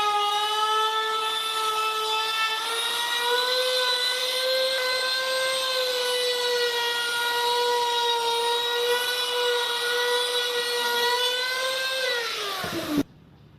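A high-speed power tool motor running with a steady whine that wavers a little in pitch, then drops in pitch as it slows near the end before cutting off abruptly.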